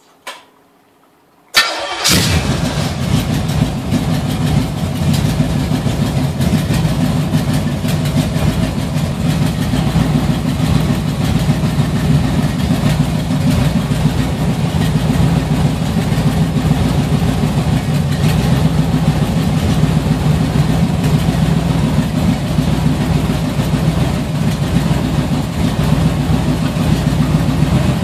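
A carbureted V8 on an engine test stand starts up about a second and a half in, after a short noise just before. It then runs steadily, exhausting through a pair of mufflers newly welded onto its headers.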